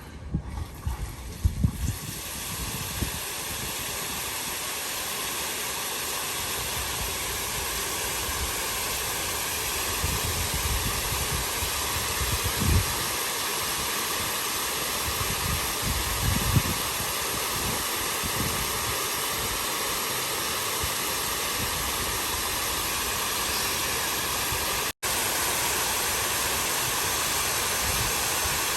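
Steady hiss of falling water spray from a rain-style water fountain. It builds up over the first couple of seconds and is broken by a few knocks near the start, occasional low rumbles, and a brief dropout near the end.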